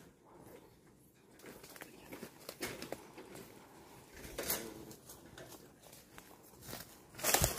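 Scattered rustles and soft footsteps of people moving quietly on foot, with a louder rustling crunch near the end.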